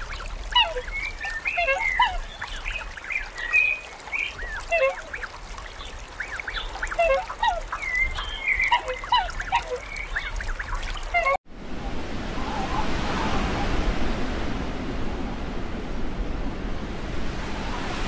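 A flock of domestic geese honking and cackling on water, many short calls overlapping. About eleven seconds in, the calls cut off abruptly and give way to a steady rushing noise.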